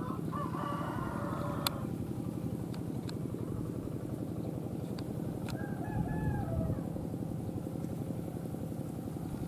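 A rooster crowing twice, once at the start and again about six seconds in, over a steady rumble of strong wind on the microphone.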